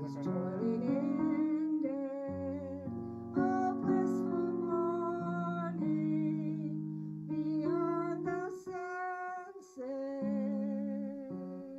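A hymn sung by an elderly woman's voice with piano accompaniment: slow held notes with vibrato over sustained chords.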